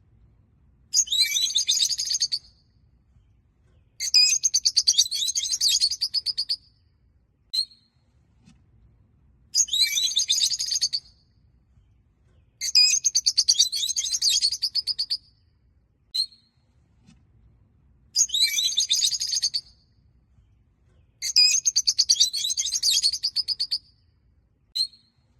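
Rosy-faced lovebirds chattering in bouts of rapid, high-pitched twittering trills, each lasting about two seconds and coming about six times, with single sharp chirps in between.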